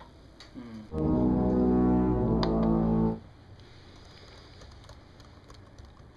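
A loud, held brass-like chord sounds for about two seconds, starting about a second in and cutting off suddenly. Soft computer-keyboard typing clicks come before and after it.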